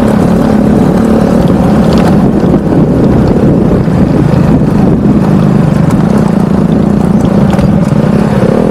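Motorcycle engine running at a steady pitch as the bike rides two-up along a rough dirt track.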